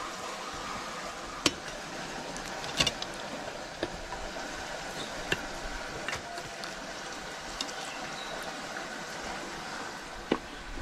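Scattered light clinks and taps of steel utensils against stainless-steel plates and bowls while food is served, about half a dozen spread out, one with a short metallic ring, over a steady background hiss.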